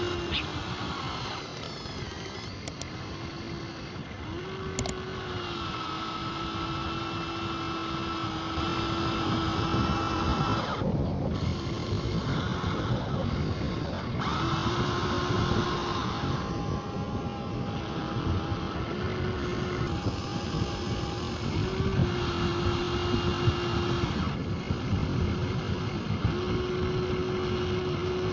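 Small electric motors and gearboxes of radio-controlled model trucks running, a steady whine that shifts up and down in pitch every few seconds over a rough mechanical rattle.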